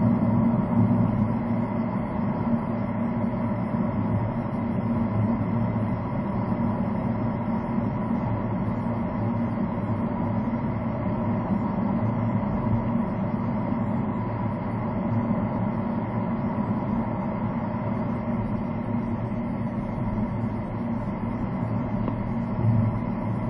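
A car driving steadily along a paved road, heard from inside the cabin: a constant, muffled hum of engine and tyre noise.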